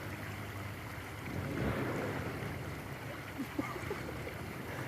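Steady rush of water in a rain-swollen creek, swelling briefly about a second and a half in.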